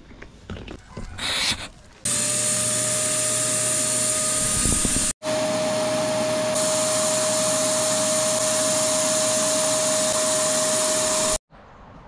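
Small electric motor running with a loud, steady whir and a fixed hum tone. It starts abruptly about two seconds in, cuts out for an instant about five seconds in, and stops abruptly near the end.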